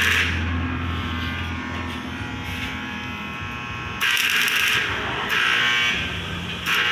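Electric arc welding: a steady electrical buzz, with louder hissing bursts of about a second each from a little past halfway.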